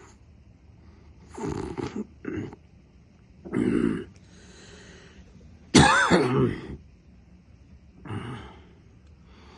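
A sleeping person making throaty snorts between snores: five short, irregular bursts, the loudest and most voice-like about two-thirds of the way through.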